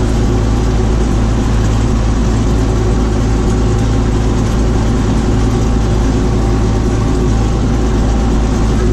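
Tractor engine running steadily at constant revs, a continuous low drone that holds its pitch, as when working a sunflower-stalk mulcher across a field.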